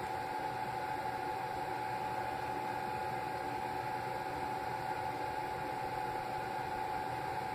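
Small travel hair dryer's motor and fan running, a steady airy hiss with a constant whine through it.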